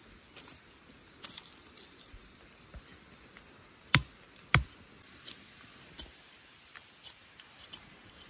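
Scattered sharp clicks and snaps, the two loudest about four seconds in, half a second apart.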